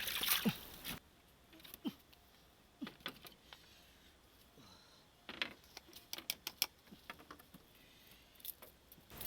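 Water splashing briefly, stopping abruptly about a second in, then scattered light clicks and knocks from hands working with food and utensils, busiest in the middle of the stretch.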